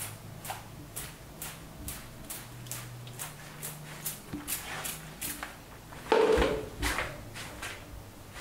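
Plastic trigger spray bottle being pumped in quick repeated squirts, each a short hiss, about two to three a second. A louder thump about six seconds in.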